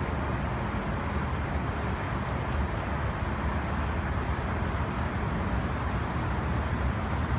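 Steady low rumble of a BMW F800GS parallel-twin motorcycle ridden at low speed, heard from some way off, with no clear engine note standing out.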